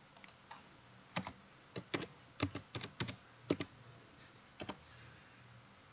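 Computer keyboard being typed on: about a dozen separate keystrokes at an uneven pace.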